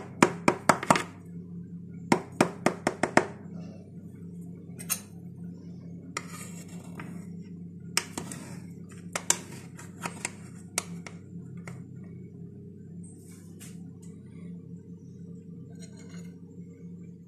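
Kitchen utensils knocking, clinking and scraping against an aluminium baking tray as a piece of cake is cut and lifted out, in quick clusters of sharp clicks, over a steady low hum.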